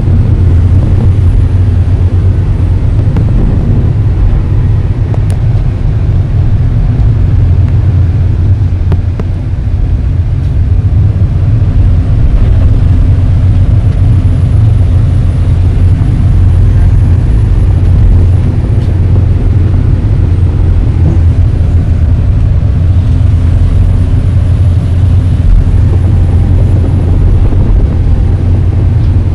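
Excavator's diesel engine running loud and steady with a deep, constant hum, heard from inside the operator's cab while the machine pushes ore with its bucket.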